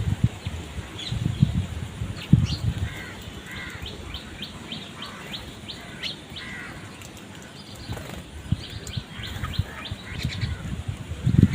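Birds calling outdoors: many short, high chirps and repeated arched calls, with a few low thumps about a second in, around two seconds in and near the end.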